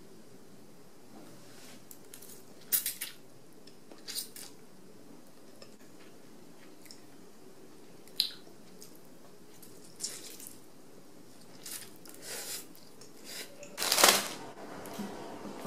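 Chopsticks clicking and tapping now and then against a ceramic bowl while noodles are eaten, a few sharp clinks spread over several seconds. Near the end, the loudest sound: a plastic bag of potatoes set down on a stone counter with a thud and rustle.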